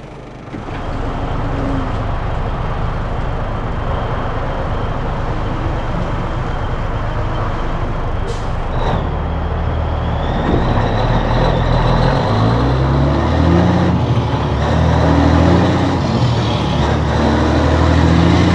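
Cabover semi truck's diesel engine, heard from inside the cab, pulling under load with the engine pitch stepping up and dropping back several times as it is shifted through the gears. A short sharp sound cuts in about eight seconds in.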